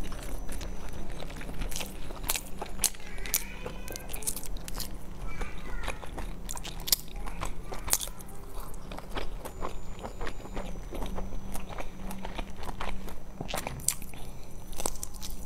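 Close-up chewing and biting of pan-fried dumplings: wet mouth clicks and smacks scattered irregularly, over a steady low hum.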